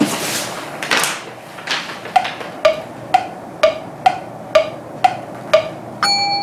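Paper crackling as a large instruction sheet is handled. Then an added 'thinking' sound effect: wood-block knocks about two a second, alternating between two pitches, ending near the end in a sustained bell-like ding for the idea.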